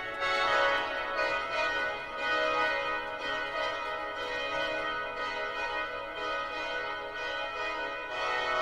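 Many overlapping bell-like metallic tones ringing and sustaining together in a dense cluster, with fresh ones sounding as it begins, about two seconds in, and a lower one entering near the end.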